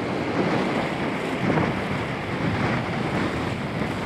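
Surf washing in the shallows with wind buffeting the microphone, and splashing from legs wading through the water.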